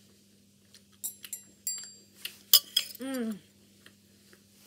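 Stainless steel table knife and fork clinking and scraping on a ceramic plate while cutting steak: about half a dozen sharp clinks with a short metallic ring. About three seconds in, a brief hummed voice sound falling in pitch.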